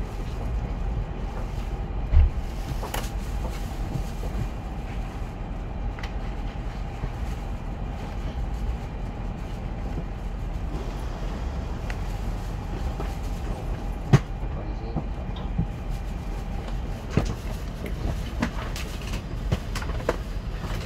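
N700S Shinkansen heard from inside the passenger car as it slows along the station platform: a steady low running rumble with a faint whine that fades out about three-quarters of the way through. Two sharp knocks, about two seconds and about fourteen seconds in, stand out over the rumble.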